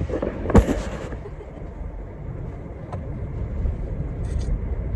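Car cabin noise while driving: a steady low road and engine rumble, with a short clatter and knock about half a second in.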